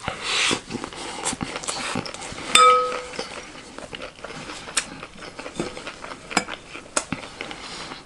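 Metal spoon clicking and scraping against a glass bowl as chatpatey is stirred and scooped, with one louder ringing clink about two and a half seconds in, and close-up chewing of the crunchy mix.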